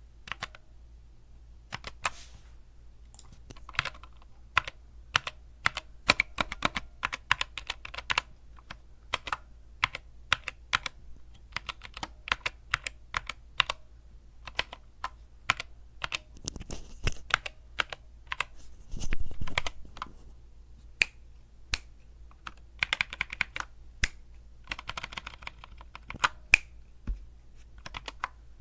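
Typing on the GK61's 60% mechanical keyboard with tactile Gateron optical brown switches: irregular keystroke clicks that come in quick flurries now and then. There is a brief, louder rustle about two-thirds of the way through.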